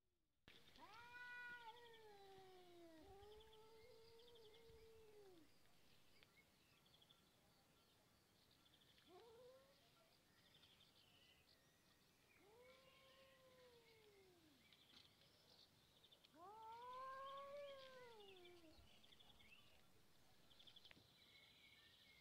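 A domestic cat yowling: about five long, drawn-out caterwauls, each rising and then falling in pitch, the loudest one coming near the end.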